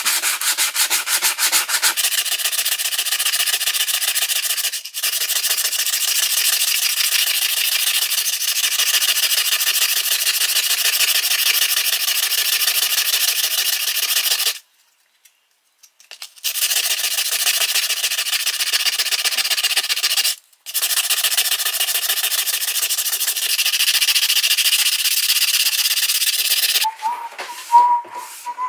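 Steel head of a hatchet being hand-sanded with sandpaper: fast, steady back-and-forth scratching strokes. They stop briefly a few seconds in, break off for about two seconds midway, pause again briefly later, and end a couple of seconds before the close.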